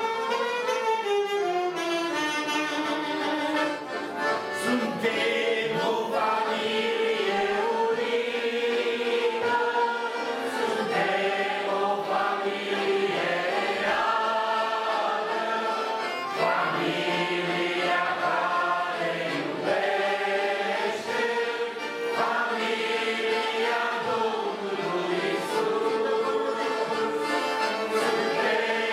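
A mixed group of men and women singing a Romanian Christian song together, accompanied by two piano accordions and amplified through microphones. A saxophone line is heard at the start, giving way to the singing.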